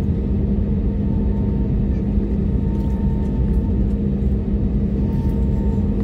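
Cabin noise of an Airbus A321neo taxiing: a steady engine hum over a low rumble, with a faint higher tone joining about a second in.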